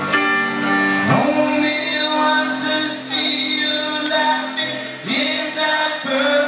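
Live rock band playing, with piano, drums and guitars under a voice singing long held notes; the chords change about a second in and again about five seconds in.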